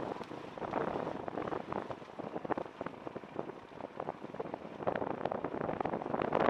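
Off-road motorcycle riding a rocky trail, heard from a helmet-mounted camera: a rough, noisy rumble with wind buffeting and a dense crackle of small clicks from stones under the tyres.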